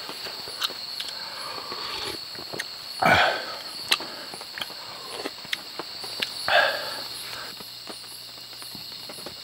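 Crickets chirping in a steady high drone, with scattered light taps of raindrops dripping on a tarp. Two louder sounds of a person eating, about three and six and a half seconds in.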